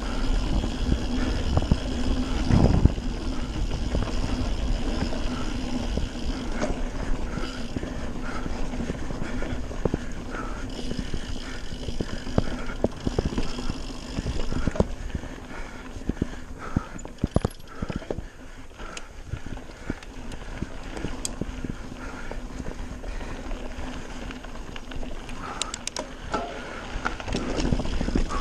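Radon Swoop 170 full-suspension mountain bike descending a dirt trail at speed: steady rolling noise of tyres on dirt, with frequent rattles and knocks from the bike over bumps. It eases off in the middle and picks up again near the end.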